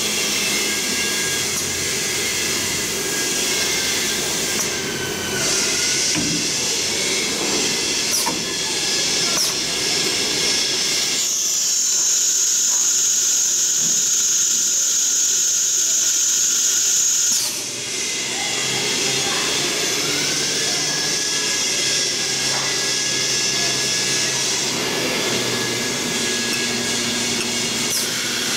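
Twin-spindle CNC wood router with automatic tool change running: steady high spindle whine over a hiss. A louder high whine fills the middle and cuts off suddenly about two-thirds through, and at other moments the pitch glides down and up as the spindles change speed.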